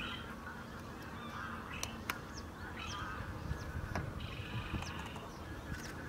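Waterbirds calling, a mix of calls and short high chirps, with a few sharp clicks about two and four seconds in.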